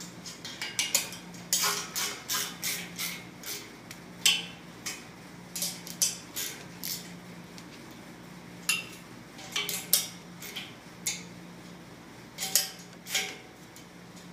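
Half-inch wrench clinking and ratcheting against the steel hex nuts on the piston's mounting studs in short, irregular clusters of sharp metallic clicks, as the nuts are tightened in a star pattern. The loudest clink comes about four seconds in.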